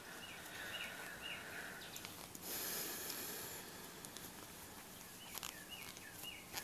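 Soft rustling of fuzzy textured yarn being worked with a metal crochet hook, with a louder rustle a little under halfway through. Faint short chirps come in two groups of three, one early and one near the end.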